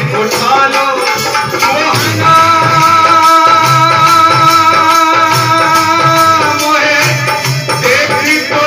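Hindi devotional bhajan sung by a man into a microphone, over a steady rhythm of naal barrel-drum strokes and a high shaken percussion. A note is held for about four seconds in the middle.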